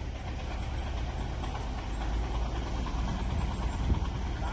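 Kubota DC-105X combine harvester's diesel engine idling steadily, with a single knock near the end.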